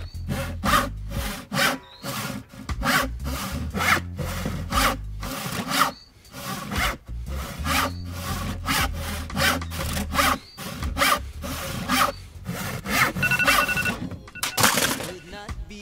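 Handsaw cutting through a wooden plank in steady back-and-forth strokes, about two a second, with a brief pause partway through. Near the end, a phone alarm starts beeping.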